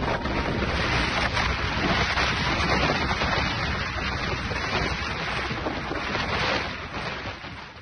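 Strong storm wind rushing and buffeting the microphone in a steady roar that fades out near the end.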